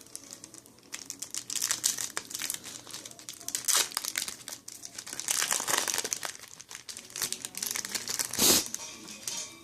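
Foil wrapper of a Yu-Gi-Oh! booster pack being torn open and crinkled in the hands, with a loud crinkle about eight and a half seconds in.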